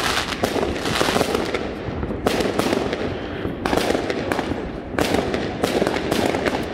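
Many fireworks going off at once: a dense, unbroken run of bangs and crackles.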